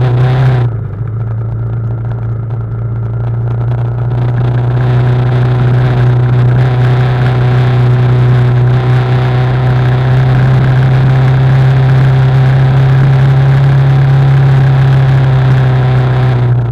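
BMW G310GS's single-cylinder engine running at a steady low speed, a loud, even hum that grows a little louder over the first few seconds. A brief noisy burst comes right at the start.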